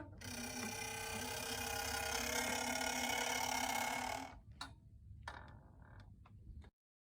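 A small mechanism whirring steadily for about four seconds, then a few sharp clicks before the sound cuts off abruptly.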